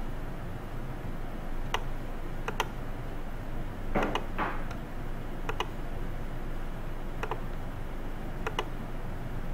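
Computer mouse clicking: a handful of single and double clicks a second or two apart, the loudest pair about four seconds in, over a steady background hum and hiss.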